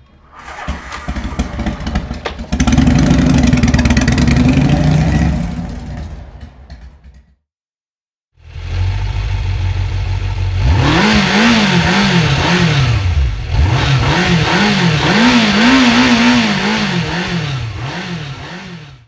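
Motorcycle engine sound effects, two clips. The first engine swells, jumps louder about two and a half seconds in, then fades out. After a short silence a second engine runs and is revved over and over, its pitch rising and falling about once a second.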